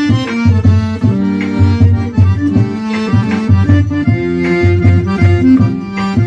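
Accordion playing an instrumental forró melody over a pulsing bass line and percussion.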